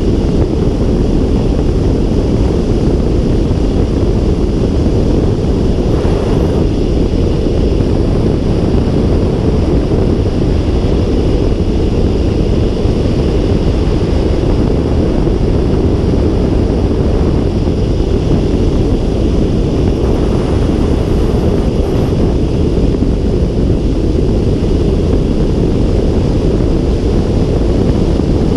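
Steady rush of air around a glider's cockpit canopy in flight, with heavy low wind buffeting on the microphone.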